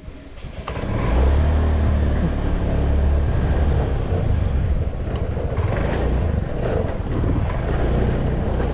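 Motor scooter being ridden: its engine runs steadily under road and wind noise, starting up loud about a second in.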